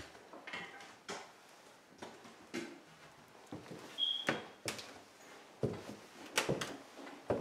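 Scattered light knocks and clicks of someone moving about in a small room, several close together in the second half, with a brief high squeak about four seconds in.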